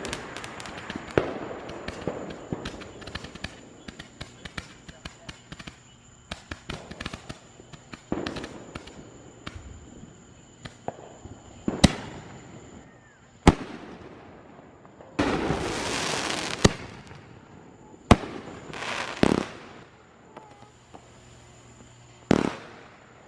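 Consumer fireworks going off. A run of small rapid crackles and pops fills roughly the first ten seconds. After that come about four sharp, loud bangs spaced a second or more apart, and a hissing rush lasting about a second and a half about two-thirds of the way through.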